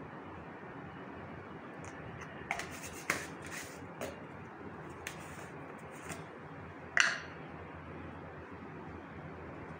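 Light clicks and taps of small spoons and plastic spice containers as spices are spooned into a steel mixing bowl, about half a dozen scattered over a steady low hiss, the sharpest one about seven seconds in.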